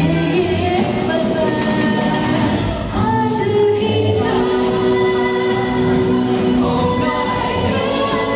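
Live band performance: a woman sings into a microphone over drums and keyboards, with one long held note through the middle.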